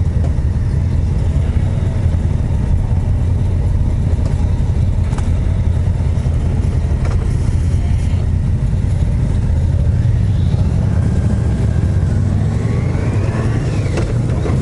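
Exhausts of a group of motorcycles rumbling low and steady at walking pace in traffic, a deep 'dododo' muffler sound. Near the end, engine pitch rises as the bikes accelerate away.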